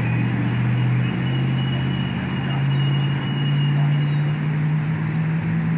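A motor vehicle's engine running steadily, a low hum that rises slightly in pitch over the few seconds.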